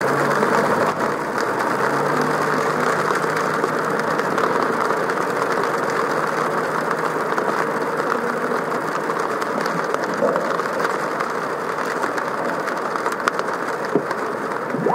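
Car driving in the rain: the engine running steadily under an even rushing noise of tyres and rain.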